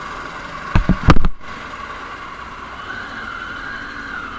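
Triumph Tiger XRx's 800 cc inline-three engine and road noise heard through a helmet-mounted action camera while riding, a steady hum. A few loud knocks come about a second in.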